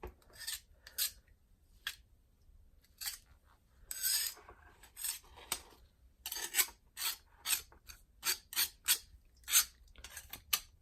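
Short scraping strokes on a cast-iron vise body, stripping paint that a Simple Green soak has bubbled and loosened. The strokes are sparse at first, then come about twice a second in the second half.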